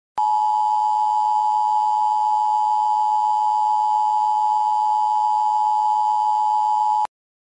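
Emergency Alert System attention signal: a steady two-tone alert tone held for about seven seconds, then cut off abruptly.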